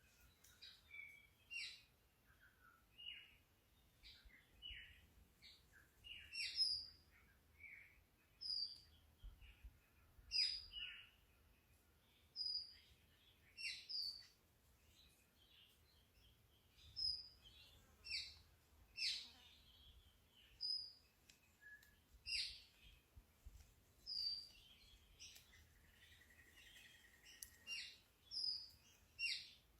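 Birds chirping: short, high calls repeating about once or twice a second.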